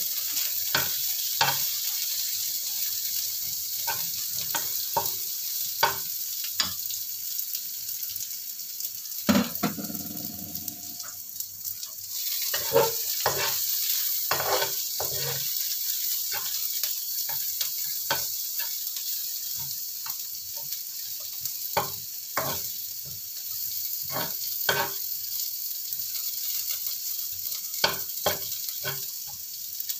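Aromatics and ground spice paste sizzling in oil in a nonstick wok while a metal spatula stirs them, scraping and knocking against the pan many times. This is the sauté stage, frying the paste until fragrant.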